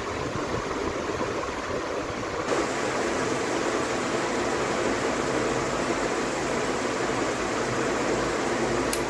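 48-inch PBS ceiling fan running fast, giving a steady rushing of air from its blades. It gets a little louder about two and a half seconds in, and there is a brief click near the end.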